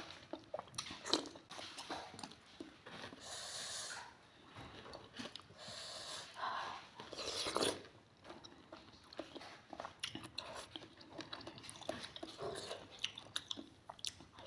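Close-up mouth sounds of somay (Indonesian steamed fish dumplings with sauce) being bitten and chewed, with many short irregular clicks and a few brief louder noisy stretches.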